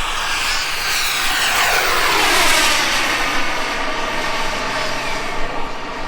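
Turbine engine of a radio-controlled jet flying past: its whine falls steeply in pitch as it passes, loudest about two and a half seconds in, then carries on as a steadier whine.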